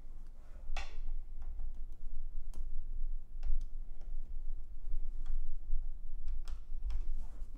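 Computer cables being handled and their plastic connectors pushed into place: a handful of sharp, irregular clicks with some rustling and handling noise between them.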